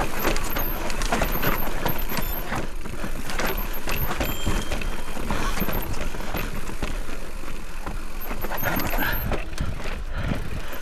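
Electric mountain bike descending a rough dirt trail: tyres crunching over rocks and ruts, the bike rattling and knocking constantly over the bumps.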